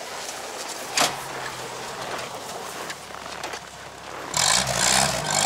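UAZ off-road vehicle's engine running low, then revving hard and loud from about four seconds in. A sharp click about a second in.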